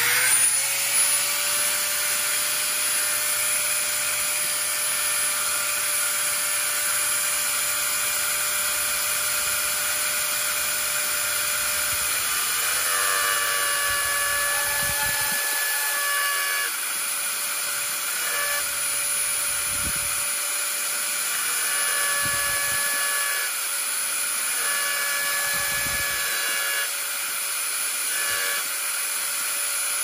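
Handheld electric rotary engraving pen spinning up and running with a steady high whine as its fine bit grinds letters into the stainless steel blade of a Swiss Army knife. From a little under halfway through, the pitch dips and wavers each time the bit bites into the metal, with scratchy grinding.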